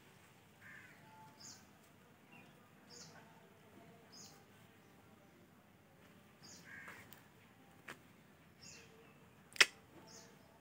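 Faint ambience of a bird calling, a short high chirp repeated every second or two, with a couple of lower calls in between. A single sharp click near the end.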